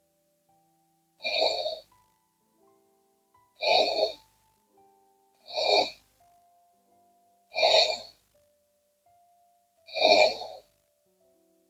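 A sleeping woman snoring: five short, loud snores about two seconds apart. A faint, soft melody of single notes plays underneath.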